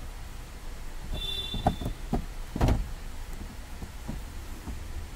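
Hands pressing and tapping a plastic interior trim panel in a car: a few knocks and clicks, the loudest about two and a half seconds in, with a brief high squeak a little over a second in.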